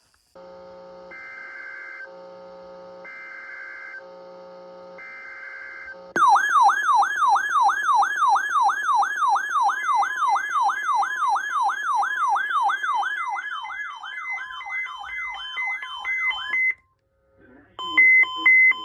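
Electronic emergency alert tones. First a repeating multi-tone pattern that switches about once a second, then a fast up-and-down yelping siren tone, about three sweeps a second, that runs for about ten seconds and stops abruptly. After a short gap, steady evenly spaced beeps start near the end.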